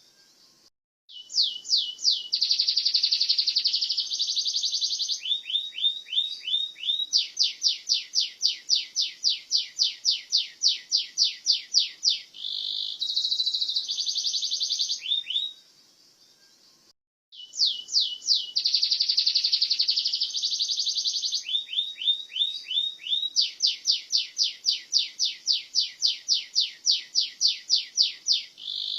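Domestic canary singing: long song phrases of fast trills and rapidly repeated high notes, each a few seconds long, with a short pause about a second in and another about halfway through.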